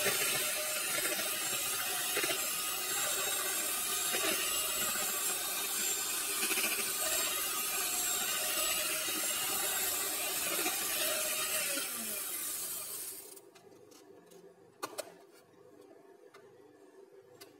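Electric hand mixer running on low speed, its beaters churning cake batter in a plastic bowl. It is switched off about 13 seconds in, and a single short knock follows a little later.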